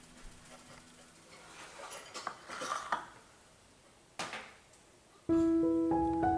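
A few faint clinks and taps of dishware, with one sharper tap about four seconds in. Background music with a melody of held notes then starts abruptly about five seconds in and is the loudest sound.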